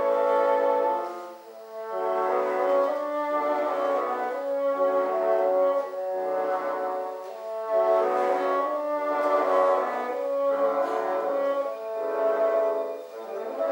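Bassoon ensemble playing a slow chordal passage, several bassoons holding sustained notes together and moving from chord to chord.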